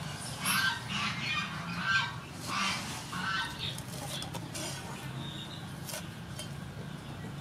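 A bird calls about six times in quick succession in the first three seconds or so. Near the end come a few sharp knocks of a cleaver chopping on a wooden cutting board.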